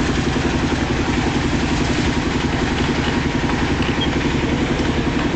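Concrete mixer's engine running steadily, with an even, rapid beat.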